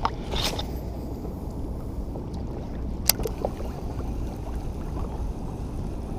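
Steady low rumble of river water and air moving around a fishing kayak. A brief swish sounds about half a second in, and a single sharp click about three seconds in.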